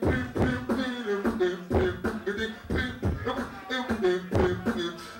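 A person beatboxing: vocal kick and snare hits in a steady beat, with hummed pitched bass notes held between the hits.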